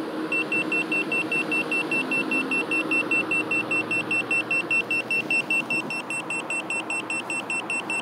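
Smart Sensor handheld carbon monoxide meter sounding its alarm, a rapid high beep about four to five times a second, set off by the car's exhaust gas at the tailpipe. A car engine idles steadily underneath.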